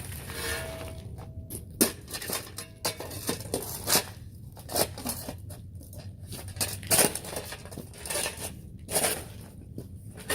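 Broken concrete and gravel being handled: irregular scraping and clattering, with sharp knocks every second or two.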